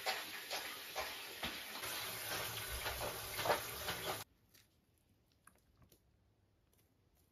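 Shower water running and splashing onto a tiled shower floor while a cat mat is rinsed by hand, with scattered splashes and knocks. It cuts off suddenly about four seconds in, leaving near silence.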